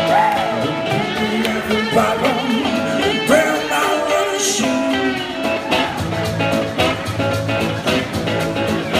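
Live band music: a man singing over acoustic guitar, with a steady beat from the drums.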